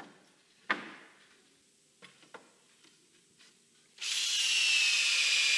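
A power drill driving a long screw into a wooden beam: after a few faint knocks, the drill starts about four seconds in, runs with a steady high whine that sags slightly, and winds down near the end.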